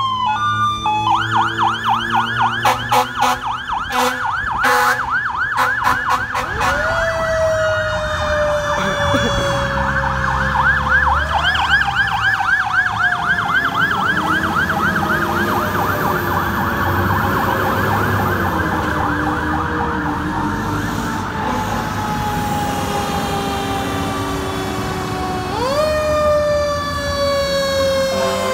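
Fire apparatus sirens on an emergency response. A fast electronic yelp runs through the first seven seconds, broken by a few short sharp blasts. Then a siren winds up and slowly falls in pitch over many seconds, and is wound up again twice, over the low rumble of the trucks' engines.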